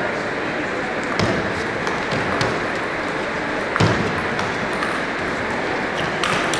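Table tennis rally: the celluloid ball ticking sharply off the players' rackets and the table, several hits spaced irregularly, the loudest about four seconds in, over steady background hall noise.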